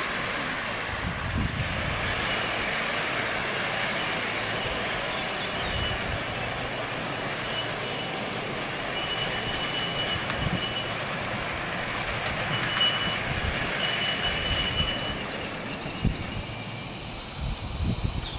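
5-inch gauge live steam model Duchess class locomotive and its riding truck running along the rails: wheels rumbling and clicking on the track, with a thin high squeal that comes and goes in the middle.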